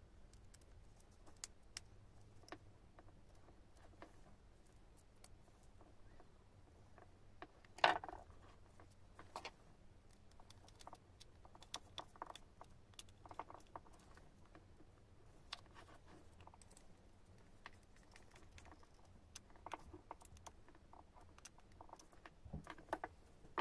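Faint scattered clicks, taps and small rattles of a screwdriver and plug parts being handled while wiring a three-pin mains plug onto a power tool's flex, with one louder knock about eight seconds in.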